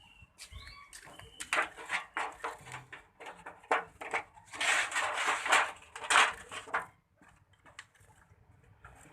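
Stiff brush scrubbing a bird cage clean of droppings in quick, rasping strokes, loudest about five to six seconds in and stopping near seven seconds. A few faint chirps early on.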